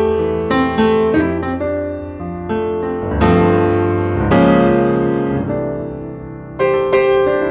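Background piano music: single notes and chords struck and left to ring.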